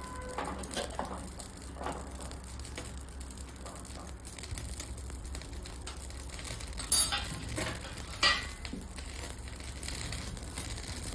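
Ajwain (carom seeds) and turmeric dry-roasting in a small clay bowl over a flame, a faint crackling with scattered small clicks and two sharper clicks about seven and eight seconds in.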